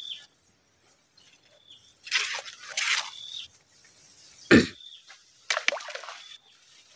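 Handling and rustling noises at a swamp's edge with a sharp thump about four and a half seconds in, then a splash on the water near the end. A bird repeats a short high call every second or so.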